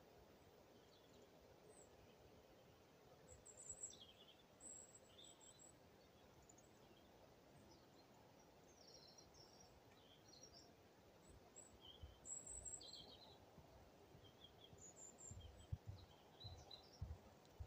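Faint birdsong: scattered short, high chirps and twitters over a quiet outdoor background. A few low, dull thuds come near the end.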